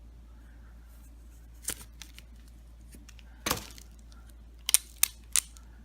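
A few sharp cracks and clicks from hands breaking apart the pieces of a dismantled zinc-carbon battery: a louder crack about halfway through, then three quick snaps near the end.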